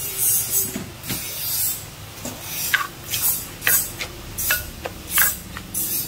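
Pounding in a clay som tam mortar: a string of sharp knocks and crunches roughly every half to one second as chillies and seasonings are crushed and worked with a spoon.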